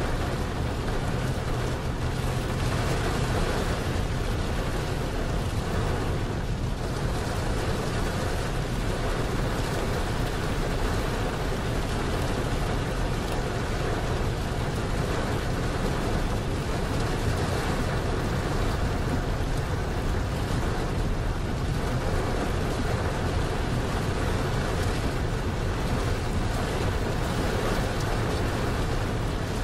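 Steady rain and wet-road tyre noise heard from inside a moving semi truck's cab, over the low drone of the truck's diesel engine.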